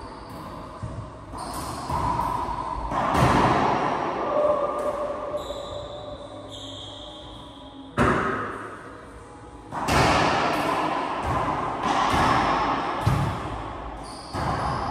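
Racquetball rally in an enclosed court: a series of sharp ball strikes off racquets and walls, a second or a few seconds apart, each ringing on with a long echo.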